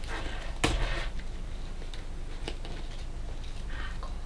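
Handling noise from a fabric camera bag and its shoulder strap being clipped on: rustling and light ticks, with one sharp click a little under a second in as the loudest sound.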